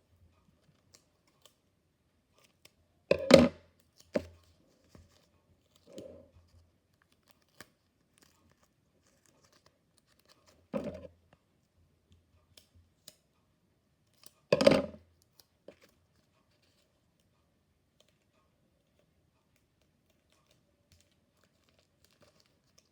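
Clear sticky tape being pulled off and torn, with paper being handled as it is taped down: a handful of short tearing and crinkling sounds, the loudest about three seconds in and again about fifteen seconds in.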